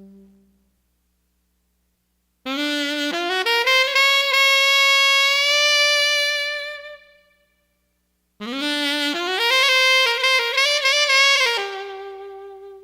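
Saxophone-led music: two melodic phrases of stepping and sliding notes, each ending on a held note, separated by short silences.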